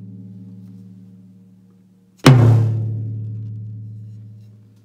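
A tom-tom struck once about two seconds in, its low, pitched ring dying away slowly; the ring of an earlier stroke fades out before it. The stroke's vibration carries through the air and sets a floor tom below vibrating in sympathy.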